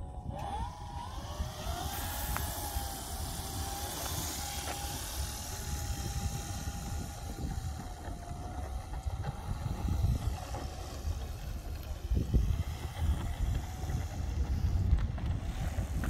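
Twin electric motors and propellers of a radio-controlled Cessna 421 model whining: the pitch rises as the throttle comes up, holds steady, then fades as the plane moves off down the runway. A gusty low rumble of wind on the microphone runs underneath.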